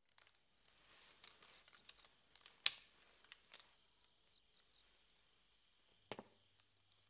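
Faint clicking and light metallic ticking of metal scale armour under a hand, with one sharp click a little under three seconds in and another near six seconds. A faint high tone comes and goes behind it.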